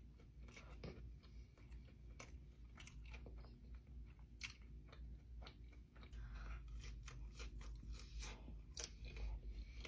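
Faint, close-up chewing of a buffalo chicken sandwich on a toasted bun, with many small crunches and wet mouth clicks scattered throughout.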